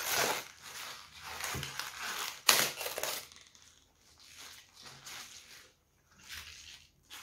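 Crisp outer leaves of a raw white cabbage being pulled off and the head handled, with crackling and rustling and a sharp crack about two and a half seconds in.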